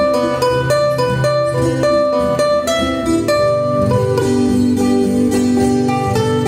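Guitar music: a plucked melody of many quick notes over lower bass notes, at a steady level.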